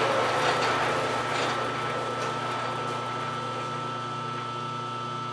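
Big American Tool Works metal lathe running with a steady mechanical hum, while the scraping of the cutting tool on a brazed cast-iron transmission housing dies away over the first second or two.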